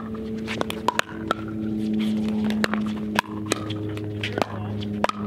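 Pickleball rally: a plastic pickleball struck back and forth by hard paddles and bouncing on the court, heard as about a dozen short sharp pops at an uneven pace, over a steady low hum.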